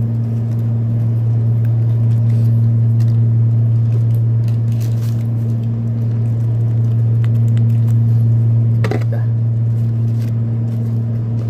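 Air conditioner running with a steady low hum. Faint rustling of ketchup sachets being torn and squeezed, with a sharper plastic crackle about nine seconds in.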